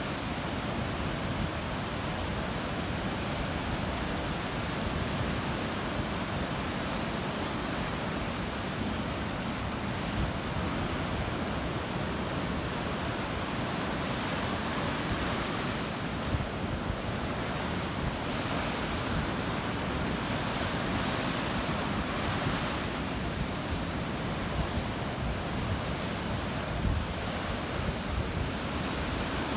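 Black Sea surf washing onto the shore, a steady rushing noise that swells as waves break, most strongly around halfway through and again a few seconds later.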